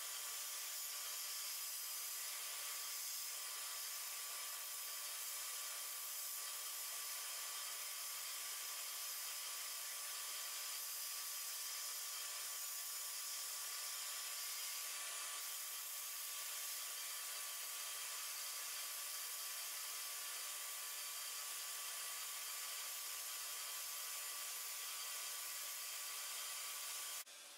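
Sandblaster in a blast cabinet, a steady hiss of abrasive jetting from the nozzle onto the pressed-steel body of a toy road grader and stripping the old green paint. The hiss cuts off suddenly near the end.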